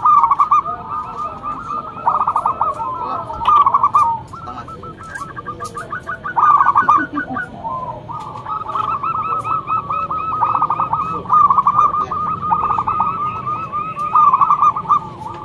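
Zebra doves (perkutut) calling: fast, stuttering cooing phrases that run on without a break and swell into louder bursts every couple of seconds.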